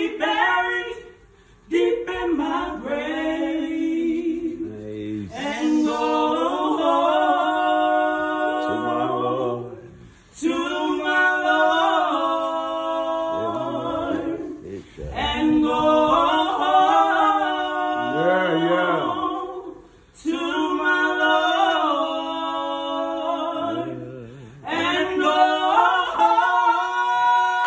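A woman and a young man singing a slow gospel song a cappella, with no instruments. They sing in long phrases with held notes, about six of them, each cut off by a short pause for breath.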